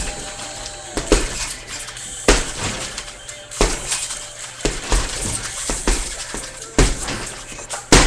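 Punches landing on a hanging heavy bag: about eight irregular thuds, roughly one a second, each followed by the jingle of the bag's hanging chains.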